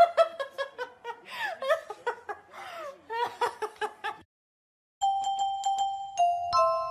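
A woman giggling and laughing for about four seconds, which cuts off abruptly. After a short silence a music track begins, with clear ringing notes stepping from one pitch to the next.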